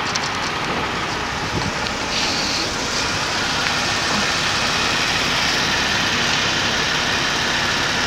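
Jeep Wrangler running as it rolls slowly over the hinge, a steady even engine-and-tyre noise with no distinct impacts.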